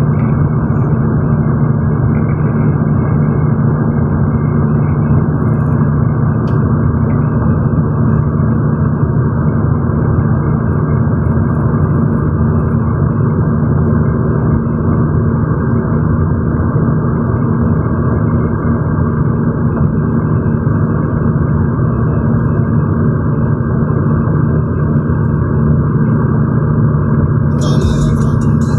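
Steady road and engine noise of a vehicle travelling on a highway: an unbroken drone with a constant low hum.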